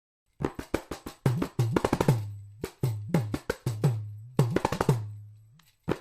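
A percussion pattern: quick, sharp, clicky hits over deep drum notes that drop in pitch and then ring on, starting about half a second in, with a brief break near the end.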